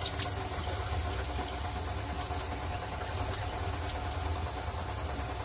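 Steady low hum under a few faint, scattered crackles from the hot frying oil, as fried fish are held up in a slotted spoon above the kadai.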